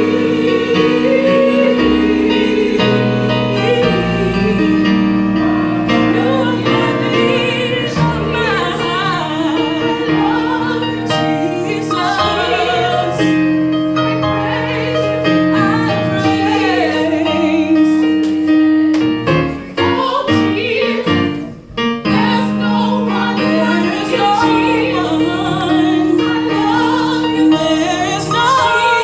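Gospel music with a choir and a female lead voice singing over piano or keyboard accompaniment. The sound drops away briefly about 21 seconds in.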